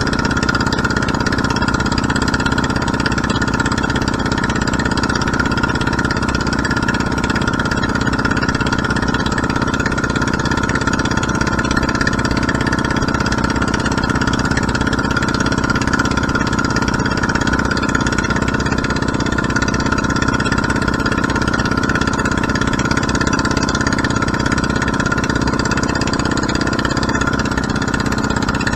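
A fishing boat's engine running steadily under way, with a fast, even pulsing beat and no change in speed.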